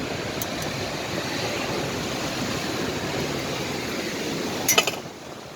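Steady rush of sea surf and wind on the microphone, with a short burst of sharp crackles near the end.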